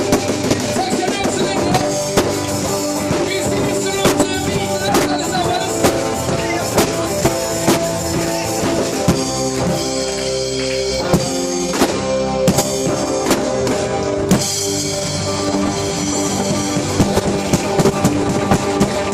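Live band music: guitar and drum kit playing, with steady beats throughout, recorded with rough, unpolished sound.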